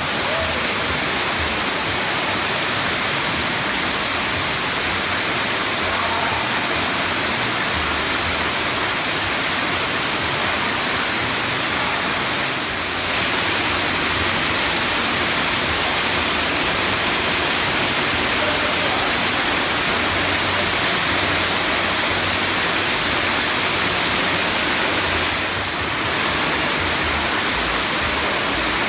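Loud, steady rush of flowing water, with two brief dips in level about thirteen and twenty-six seconds in.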